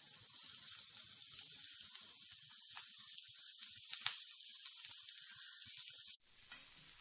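Chopped onions frying on high heat in a little sesame oil on a cast-iron dosa tawa: a steady high sizzle with scattered crackles. It breaks off abruptly about six seconds in, then returns fainter.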